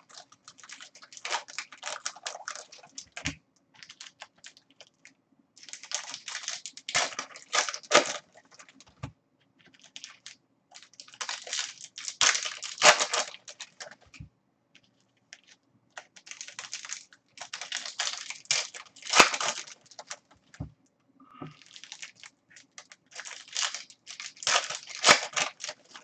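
Plastic wrappers of 2016 Bowman's Best trading-card packs crinkling and tearing as the packs are ripped open and the cards pulled out. The crackling comes in repeated bunches with short pauses between them.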